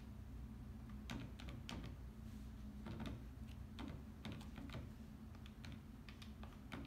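Faint, irregular clicks of calculator keys being pressed as a subtraction is worked out.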